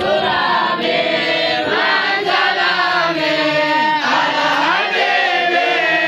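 A large group of young Quranic-school pupils chanting together in unison, many overlapping voices held in one continuous chant.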